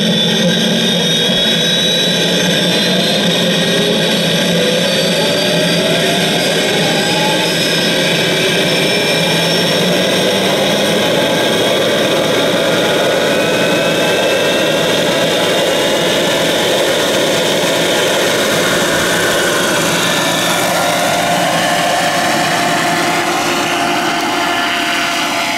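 Large electric RC scale Bell AH-1Z Viper helicopter, driven by an Align 850MX motor, running with its four-blade main rotor and tail rotor turning: a steady motor and gear whine over rotor noise. Several of its tones rise over the first half as the rotor speeds up.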